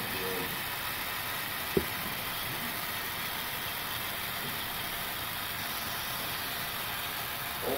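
HO scale model freight cars rolling along the layout's track, a steady even rolling noise, with one sharp click a little under two seconds in.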